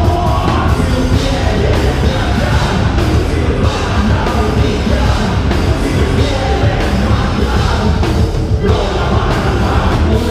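Heavy rock band playing loud and live: drums, bass and guitars in a dense, continuous wall of sound with a steady driving beat.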